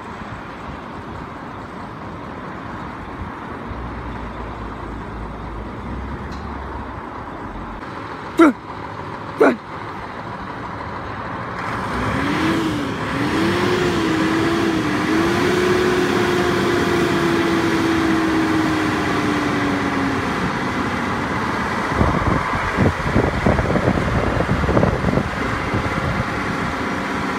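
A motor vehicle engine running. Two sharp knocks come a second apart a third of the way in, then the engine gets louder, with a wavering hum that settles and slowly drops in pitch before a rougher, uneven rumble near the end.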